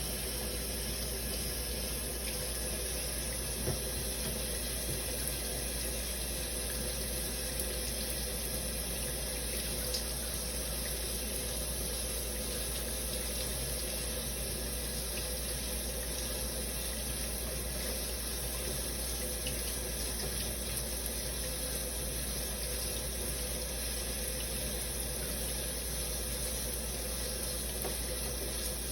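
Shower running steadily: an even hiss of falling water, with two brief ticks in the first third.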